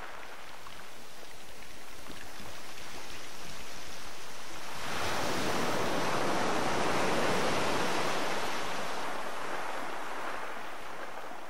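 Sea surf, a steady rushing wash of waves that grows louder about five seconds in and fades out near the end.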